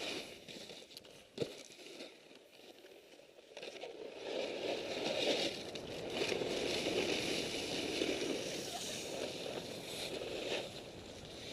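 Snow scraping and crunching under skis or snowboard while riding downhill, heard through a helmet-camera microphone muffled by layers of electrical tape, so there is little wind noise. A sharp knock comes about a second and a half in, and the sliding gets louder after about four seconds.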